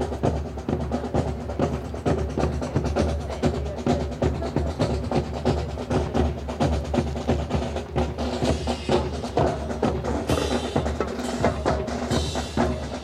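Marching band music with fast, continuous drumming (snare and bass drum) over held band notes.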